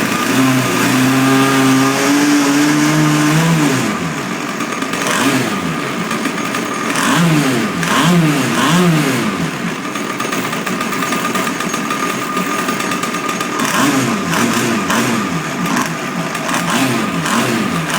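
35cc two-stroke gas engine of an RC boat running, brought back to life after two years standing with a gunked-up carburettor cleaned. It holds a higher speed for the first few seconds, drops back, then is revved up and down repeatedly, with a run of quick revs in the middle and more near the end.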